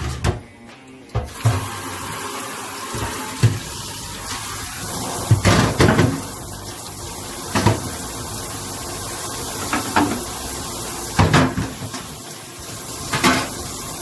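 Kitchen tap running steadily into a sink, starting about a second in and shutting off at the end, with several sharp knocks of dishes or pans being handled in it.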